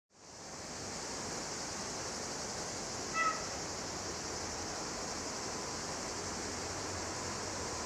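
Steady high-pitched insect chorus in summer vegetation, with one short bird chirp about three seconds in.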